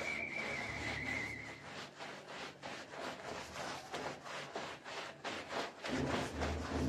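Stiff plastic-bristled push broom scrubbing a wet, soapy rug in quick back-and-forth strokes, a rhythmic swishing rub about three times a second.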